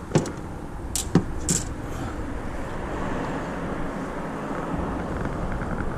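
A few sharp knocks in the first second and a half as the camera is handled in an aluminium jon boat, then a steady rush of wind noise on the microphone.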